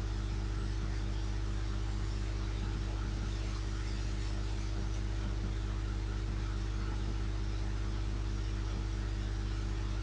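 Steady low electrical hum with a faint hiss over it.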